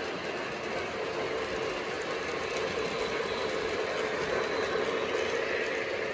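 O gauge model of Southern steam locomotive 4501 and its passenger cars running past on three-rail track: a steady rumble of wheels and motor that grows a little louder as the locomotive passes close, about four seconds in.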